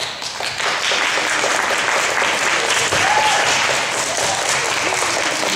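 An audience of schoolchildren clapping, starting suddenly and going on at a steady level.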